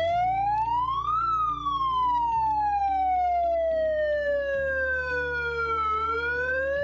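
A siren wailing as the evacuation alarm: its pitch rises for about a second, falls slowly for about five seconds, then starts to climb again near the end. A steady background music bed plays underneath.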